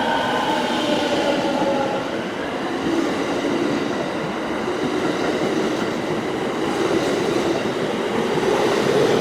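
Electric train moving through a station: the motor whine falls in pitch over the first two seconds, giving way to steady running noise and wheel rumble, and a low tone begins to rise near the end.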